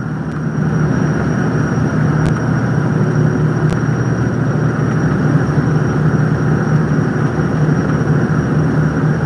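High-speed catamaran ferry running at speed, heard inside the passenger cabin: a steady low engine hum under an even rushing noise.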